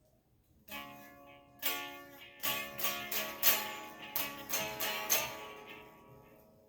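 Guitar being plucked: a slow run of single notes starting about a second in, each ringing out and fading, the last ones dying away near the end.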